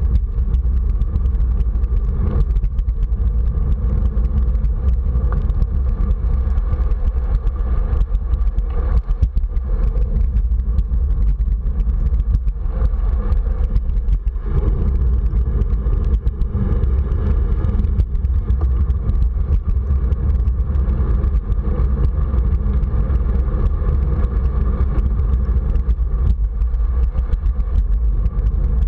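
Steady low rumble of wind and road noise on a bike-mounted camera while riding along a wet street.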